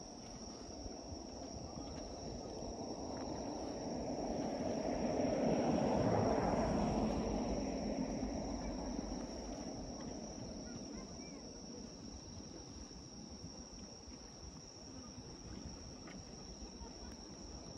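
A vehicle passes, its rumbling noise swelling to a peak about six seconds in and then fading away, over insects chirring in a steady high tone.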